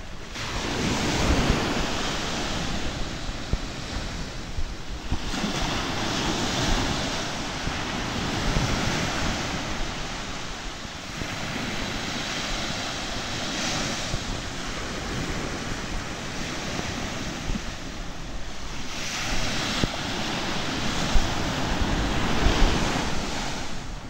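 Small waves washing onto a sandy beach, swelling every few seconds, with wind buffeting the microphone.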